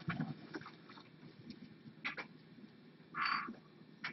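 Quiet rustling and crinkling of paper and parcel packing being handled, with a few light taps and clicks and a short louder rustle about three seconds in.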